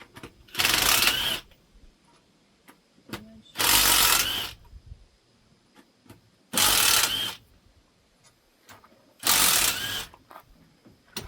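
Power impact wrench run in four short bursts about three seconds apart, each under a second, with a slight rising whine near the end of each burst, as bolts are loosened.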